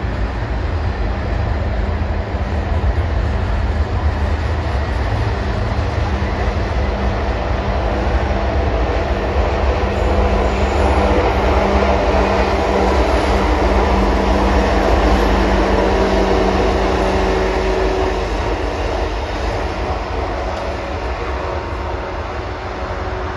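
Intermodal freight train of stacked containers and trailers rolling past at close range: a steady loud rumble of wheels on rail, loudest about halfway through and easing off near the end.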